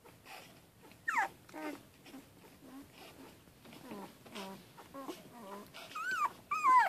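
Young Boston lab puppies whimpering and squealing: a sharp falling squeal about a second in, softer short whines through the middle, and louder rising-and-falling squeals near the end.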